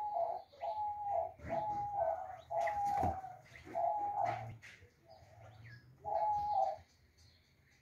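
Diamond doves cooing: a run of short, even coos, about one a second, with a pause near five seconds in before a last coo. A few short knocks sound among the middle coos.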